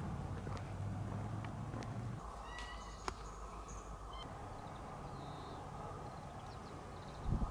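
A calico domestic cat meowing in a few short calls, with a single sharp click among them. Before the calls, a steady low rumble cuts off about two seconds in.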